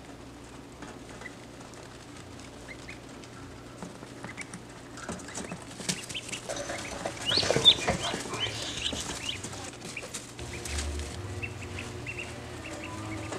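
Ducklings peeping in short high calls and shuffling in wood shavings. About halfway through there is a louder flurry of rustling and peeping, then it settles back to scattered peeps.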